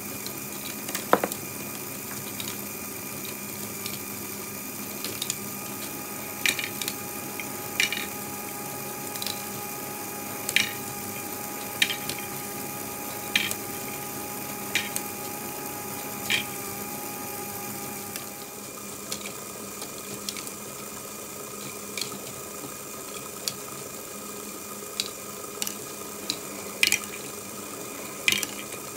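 A LEGO Great Ball Contraption roller-coaster module running, its motor and gears whirring steadily. Sharp plastic clacks come about every one and a half seconds for a while, then more irregularly, as parts and balls move through the track loops.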